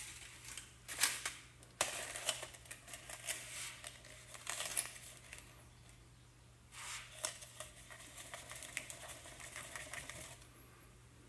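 Crumpled aluminium foil crinkling and scraping against a glass jar as it is pushed down into copper sulphate solution, in runs of quick crackles. From about seven seconds in, salt is poured into the jar as a fine rattle of grains that stops shortly before the end.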